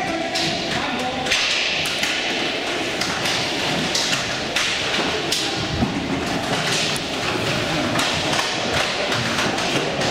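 Inline roller hockey play: irregular sharp clacks and thuds of sticks, puck and boards over a steady hiss.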